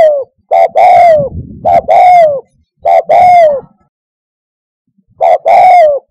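Spotted dove calling: a run of deep coos, each a short note followed by a longer one that falls in pitch as it ends. Three such pairs come in quick succession, then a pause of over a second before the next phrase starts near the end.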